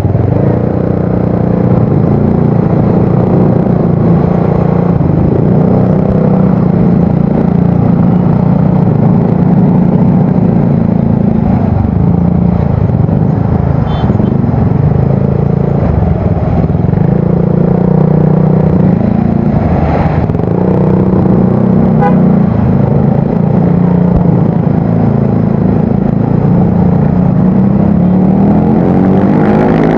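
Yamaha Mio Soul GT scooter's single-cylinder engine running through an aftermarket exhaust with a deep, bassy note, held at low revs in slow traffic with the revs rising and falling slightly.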